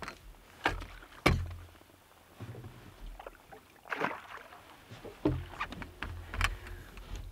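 Sharp splashes and knocks at the side of a boat, about five spread over several seconds, as a hooked pike thrashes at the surface and is netted.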